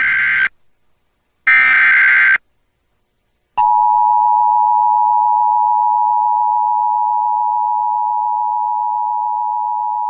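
Emergency Alert System broadcast tones. First come the end of one burst and then one more short burst of the screechy SAME digital header. After about a second's pause, the steady two-tone EAS attention signal starts about three and a half seconds in and holds without a break. Together they herald a severe thunderstorm warning.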